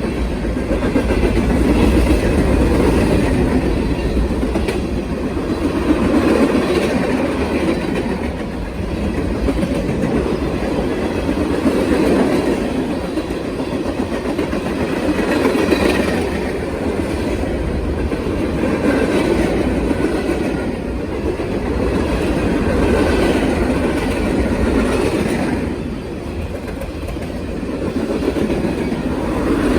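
Freight train cars rolling past, steel wheels clattering over the rail joints in a steady rumble that swells and eases every few seconds as each car goes by.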